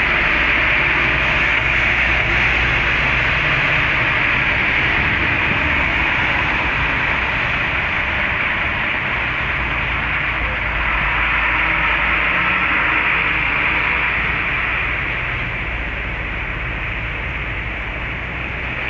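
A steady hiss with a low rumble underneath, from a demolition grab excavator's diesel engine running at a distance.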